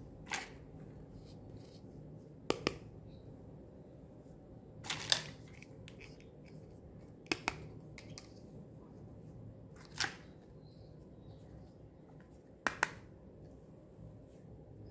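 Sharp clicks and taps of toy plastic hairbrushes being handled and set down in a row, several coming in quick pairs, every two to three seconds, over a faint steady low hum.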